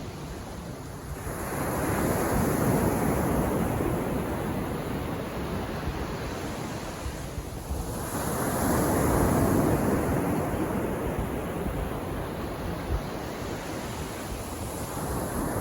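Calm sea waves breaking and washing onto a beach, two swells of surf about six seconds apart, with a third beginning near the end.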